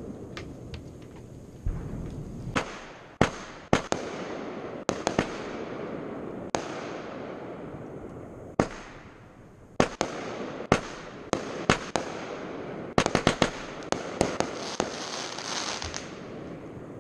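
Aerial fireworks bursting: a string of sharp bangs at irregular intervals over a steady rumbling haze, with a quick cluster of several bangs about three-quarters of the way through.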